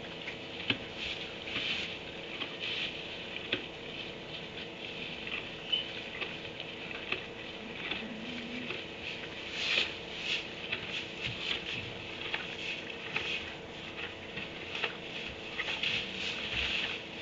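Irregular light rustling, scratching and pattering of donkeys shifting and nosing about in wood-shavings bedding, over a faint steady electrical hum.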